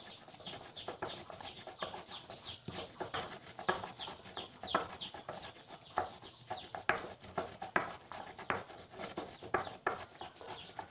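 Stone pestle grinding garlic, coriander and salt into a paste in a stone mortar: a quick, irregular run of rough scraping and grating strokes.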